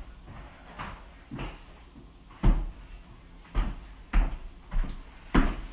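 A series of dull knocks and thumps in a room, irregular at first and then coming about every half second, the loudest about two and a half seconds in.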